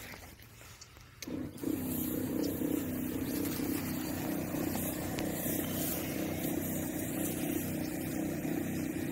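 Battery-powered sprayer pump starting about a second in and then running steadily, a constant hum with a hiss as it sprays through the lance.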